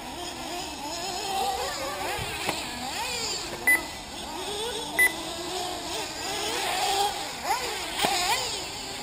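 Several 1/8-scale nitro RC buggy engines buzzing around the track, their pitches revving up and down and overlapping. Two short electronic beeps cut through about a second and a quarter apart, near the middle.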